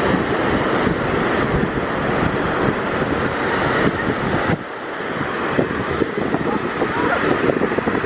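Ocean surf breaking and washing through the shallows, mixed with wind buffeting the microphone; the noise dips briefly about halfway through.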